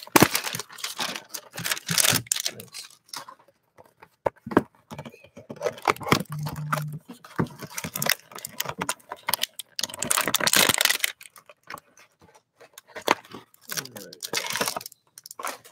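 A cardboard trading-card hanger box being pulled open, then a foil card pack torn and crinkled, with rustling and small clicks as the wrapper and cards are handled.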